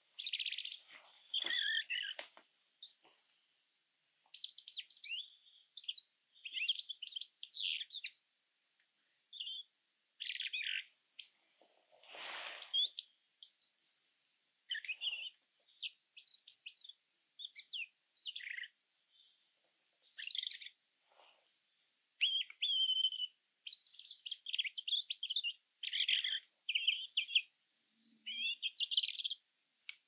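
European robin singing: a long run of short, high, warbling and trilling phrases, each different, separated by brief pauses.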